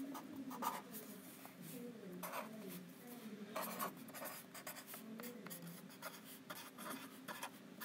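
Pen writing on a lined paper note card: a quick run of short scratchy strokes as the words are written out.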